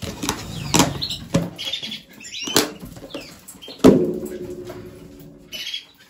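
Several sharp knocks and clinks of a bowl and containers being handled while food is mixed. The loudest comes about four seconds in and rings on briefly. Canaries chirp faintly in the background.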